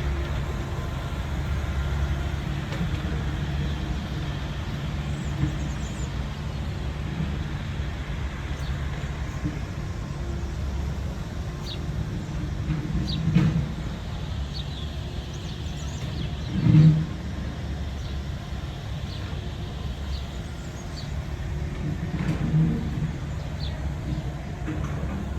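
Steady low rumble of city traffic, swelling louder for a moment three times as vehicles pass, with faint short bird chirps scattered over it.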